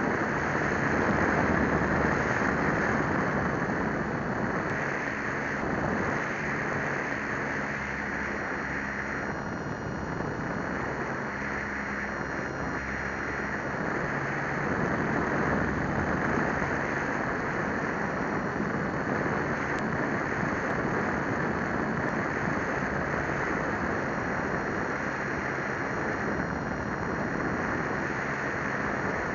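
RC plane's motor and propeller recorded by a camera on board in flight: a steady drone mixed with rushing wind over the microphone, its pitch shifting a little now and then.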